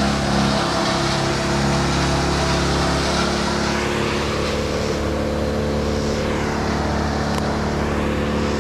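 An engine running steadily at constant speed, a continuous hum with a rushing hiss over it.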